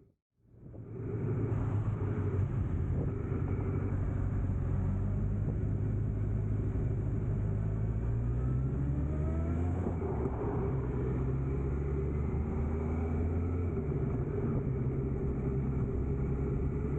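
A motor vehicle engine running steadily under road noise, with a pitch that rises for a while about eight to ten seconds in.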